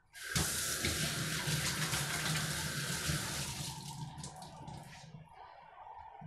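Kitchen tap turned on and water running into the sink while hands are washed under it. The flow is strong for about three and a half seconds, then dies away over the next two.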